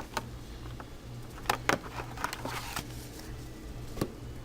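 Paper booklets and packaging being handled: a scattering of short taps and light rustles, over a steady low hum.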